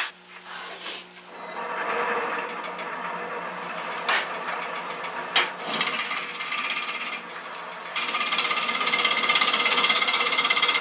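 Wood lathe running with a drill bit in the tailstock being fed into the spinning yellow birch blank to bore a depth hole before hollowing the bowl. The motor whine rises briefly near the start, there are a couple of knocks around the middle, and from about two-thirds of the way in the cutting gets louder with a fast rough pulsing.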